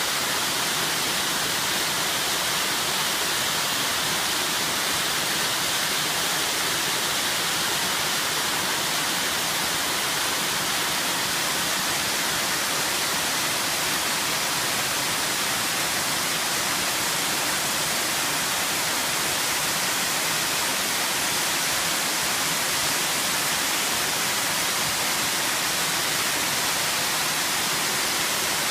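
Small spring-fed waterfall: underground water from Mount Chōkai pouring out of the rock face and falling, making a steady, even rush of water.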